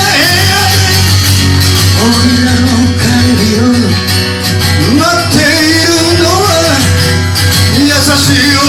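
Live band performing a song: a singer's voice over guitar and a steady bass line.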